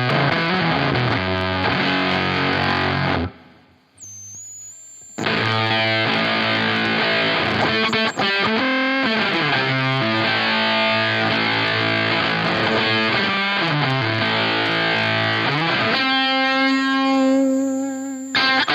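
Electric guitar played through a Dunlop FFM1 Silicon Fuzz Face Mini fuzz pedal into a Marshall Super Lead amp: fuzz-distorted riffs and lead lines. The playing stops briefly about three seconds in, then resumes, and a long note is held near the end before cutting off.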